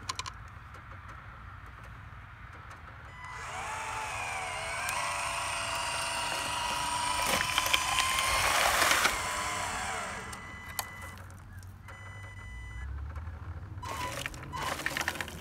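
Electric dump-bed hoist of a radio-controlled Western Star dump truck whining as it tips the bed up, its pitch shifting under the load. About halfway through, the load of rocks and leaves slides out of the raised bed with a rattling crackle, the loudest part.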